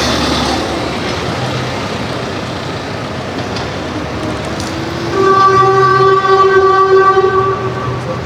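Steady city traffic noise, then a vehicle horn sounds one long, steady blast of about two and a half seconds, starting about five seconds in.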